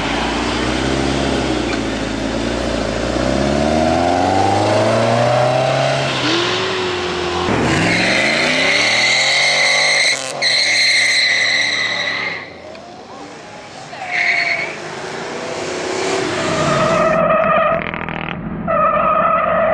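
Sports cars accelerating hard and revving, the engine pitch rising and dropping with each gear change. Tyres squeal in a long high screech from about eight seconds in, then once more briefly. Music with distorted electric guitar starts near the end.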